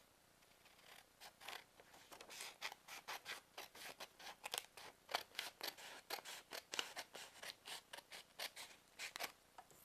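Scissors cutting through a sheet of paper: a long, quiet run of short snips, about two to three a second, starting about a second in.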